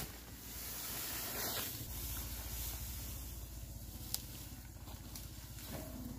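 Dry straw and grass rustling and scraping as it is raked and pitched with a long-handled rake, a steady hiss with one light tap about four seconds in.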